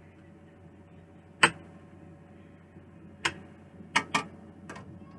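A spoon knocking against a nonstick skillet while meat sauce is scooped out. There are five sharp knocks: one about a second and a half in, one a little past three seconds, then three in quick succession near the end.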